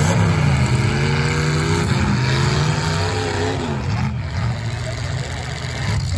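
Demolition derby car engines running and revving, their pitch rising and falling over a constant rumble.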